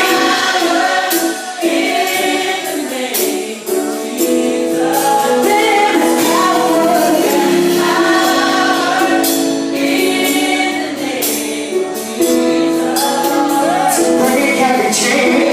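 Live gospel worship song performed by a band with a group of singers, sung voices held over steady percussion with tambourine-like hits.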